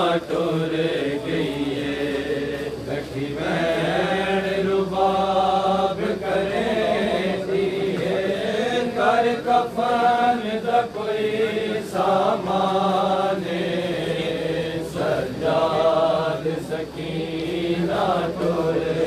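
Group of men chanting a Shia noha, a slow mourning lament, in unison, with the voices holding long notes. Sharp slaps, likely chest-beating in matam, come now and then over the chant.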